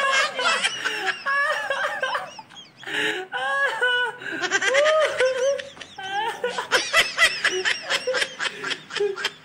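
A man laughing hard and uncontrollably in high-pitched bursts of giggling, broken by short catches of breath.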